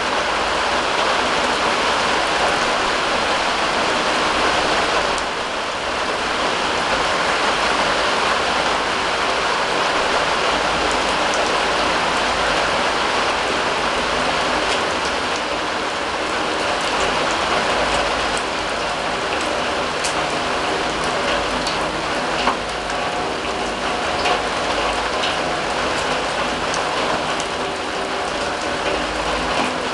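Steady rain falling on a steel drum, an even patter with scattered sharper drop ticks and one louder tick about two-thirds of the way in.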